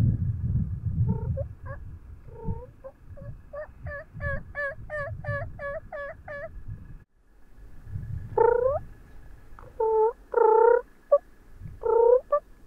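Wild turkeys (jakes) yelping: a quick, even run of calls of about three a second, then a few louder separate calls near the end.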